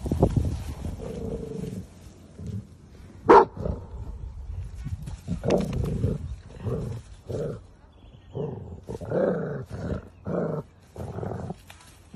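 Dogs growling in rough play-fighting: a rumble at first, then a run of short growls, about one or two a second, through the second half. A single sharp click a little after three seconds in is the loudest sound.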